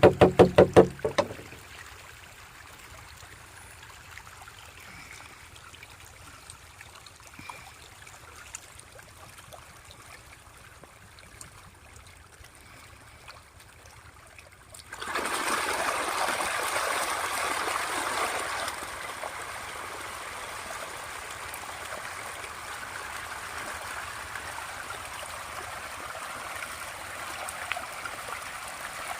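A fast run of knocking stops about a second in. About halfway through, a loud rush of water starts abruptly, eases after a few seconds and keeps running steadily.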